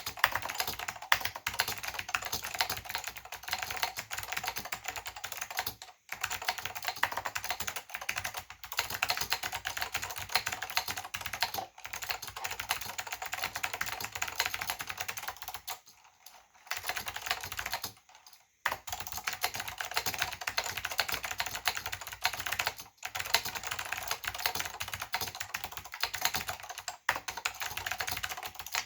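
Northgate OmniKey/Plus keyboard being typed on fast: Alps SKCM White switches clicking under ABS doubleshot keycaps in a steady stream of keystrokes, with a few brief pauses.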